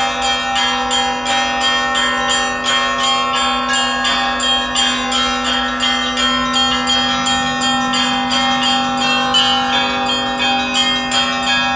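Festive peal of Russian Orthodox church bells: smaller bells struck in a quick, steady rhythm over the continuous low ring of a larger bell.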